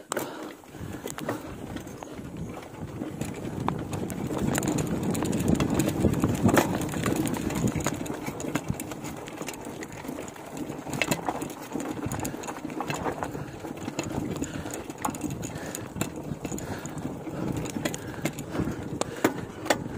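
Fat-tyre mountain bike ridden uphill over a rough dirt track: tyres rolling on dirt, with frequent clicks and rattles from the bike. The sound swells for a few seconds starting about four seconds in.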